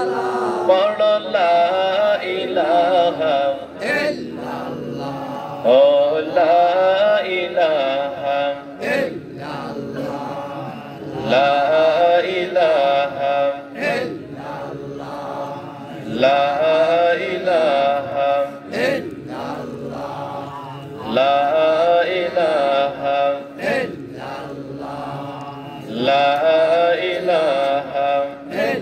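A man's voice chanting Islamic zikr through a microphone, in melodic phrases of about three seconds that repeat about every five seconds, with quieter chanting between them.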